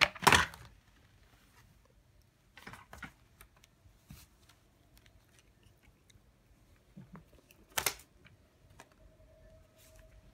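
Thin metal photo frames and loose papers clattering and rustling as they are handled over a lying cat: a loud double clatter at the start, softer rustling about three seconds in, and another sharp clatter about eight seconds in.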